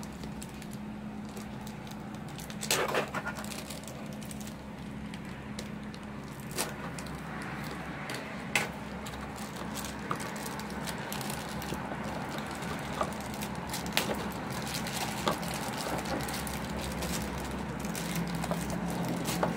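Clear plastic bag crinkling and rustling as a keyboard cable is worked out of it, with scattered sharp crackles and clicks over a steady low hum.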